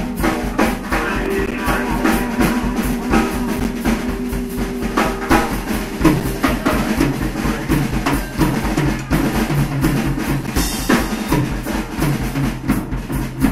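A live blues-rock trio playing a song: a drum kit with a busy bass drum and snare beat under electric guitar and bass guitar.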